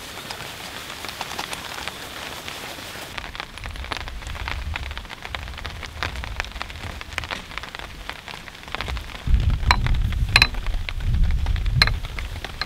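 Rain falling, a steady patter of drops on a surface. A low rumble comes in briefly about four seconds in, then louder for about three seconds near the end.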